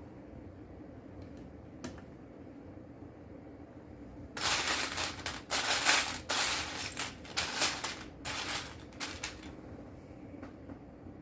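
Loose plastic Lego bricks clattering as a hand rummages and sifts through a pile of pieces, searching for a part. A loud run of rattling lasts about five seconds, starting near the middle, with a couple of single clicks before it.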